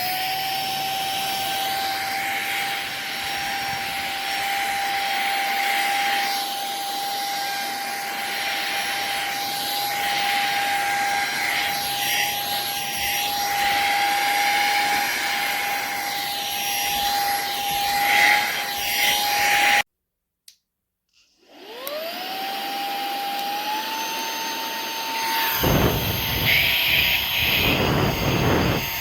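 A handheld cordless car vacuum's brushless motor running with a steady high whine and rushing air. It cuts off abruptly about two-thirds of the way through. It then spins up again with a rising whine that settles a little higher, and a louder rush of air near the end.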